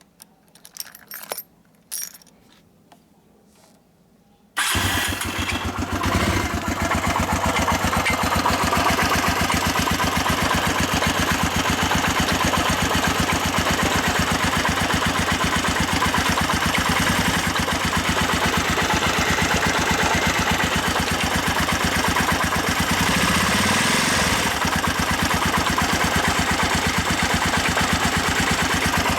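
A few light clicks, then about four and a half seconds in the Honda GB250 Clubman's air-cooled single-cylinder four-stroke engine starts and runs steadily with rapid even pulses. It carries an abnormal mechanical noise, here relatively quiet compared with the louder clattering and grinding the owner heard before.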